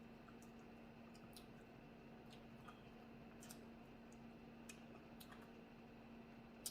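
Near silence with faint, scattered clicks and small cracks of someone eating a seafood boil, over a faint steady low hum.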